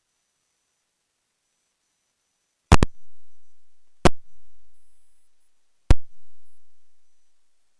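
Three loud thumps a second or two apart, the first one doubled. Each is followed by a low boom that dies away over a second or more.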